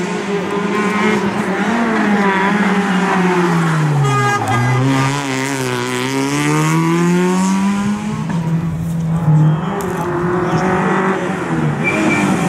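Rally car engines revving hard through a tight bend. About four seconds in the revs drop sharply as the car brakes and shifts down for the corner, then climb steadily as it accelerates away. After a cut a second rally car's engine revs up on its approach.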